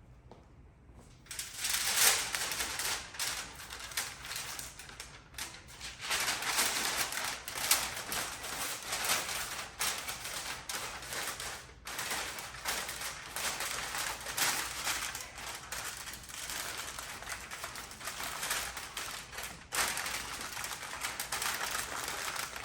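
Aluminium foil crinkling and crackling as it is handled around a rack of ribs being wrapped; it starts about a second in and goes on in dense, uneven crackles.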